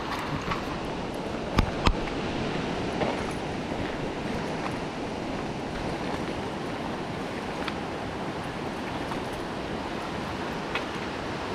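Steady rush of a river running fast after heavy rain, its whitewater heard through the trees. Two sharp knocks land close together about a second and a half in.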